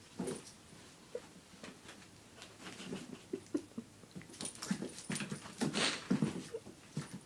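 A small puppy making short, irregular little vocal noises while playing, mixed with quick scuffling sounds, busiest in the second half.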